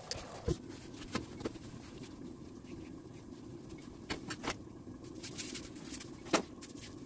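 Pot of peanut butter chicken soup bubbling on an electric stovetop: a steady simmering hiss with scattered pops and clicks, the loudest about six seconds in.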